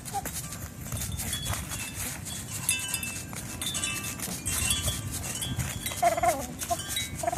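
An animal making strange short whiny vocal noises, one wavering call about six seconds in and another at the very end, over light metallic jingling throughout.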